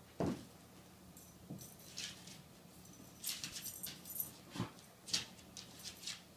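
A puppy playing tug with a toy on the floor: scattered short rustles, taps and a few thumps as it pulls, with a cluster of rustling about halfway through.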